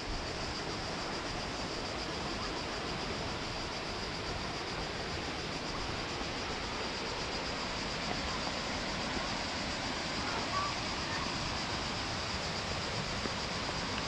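Steady rushing roar of the Kravice waterfalls, tufa cascades on the Trebižat River, with a constant high-pitched buzz over it.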